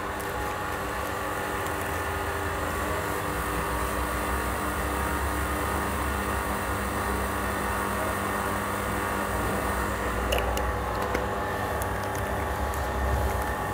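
Timken-type oil wear-test machine running steadily: its electric motor hums as it spins the steel test ring through the oil bath.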